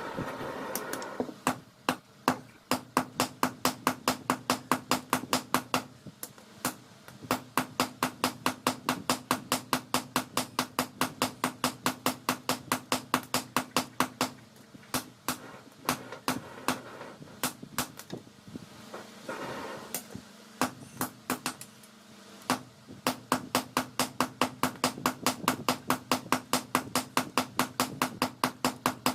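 Hammer blows on hot leaf-spring steel on an anvil, forging a dao blade: a fast, steady rhythm of about three to four ringing strikes a second, broken by a few short pauses, over a steady low hum.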